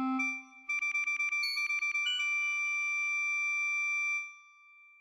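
Synthesized MIDI tones made from a photo converted to notes: a low tone with a high cluster at the start, then a quick run of short stuttering high notes, settling into a held high chord that cuts off about four seconds in.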